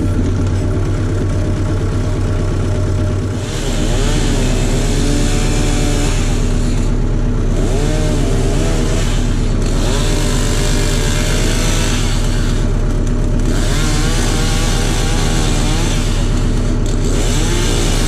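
Compact tractor's diesel engine running steadily, with a powered tool running in repeated bursts of two to three seconds on top, starting a few seconds in.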